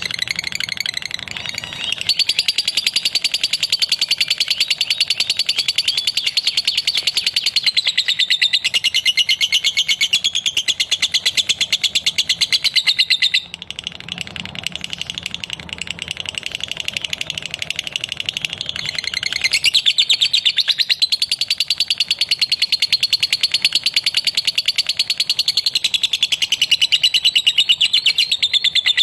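Lovebird singing a long, unbroken run of very rapid chattering chirps, the nonstop 'ngekek' song that keepers call konslet. It drops in level for several seconds about halfway through, then comes back at full strength.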